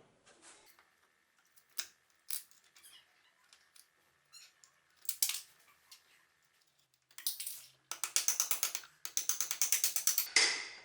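Hand work on small metal tool parts: scattered sharp clicks, then two runs of quick rasping strokes, about ten a second, in the last few seconds.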